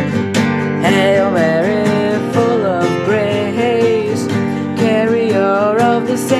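Music: strummed acoustic guitar chords with a wavering melody line above them from about a second in.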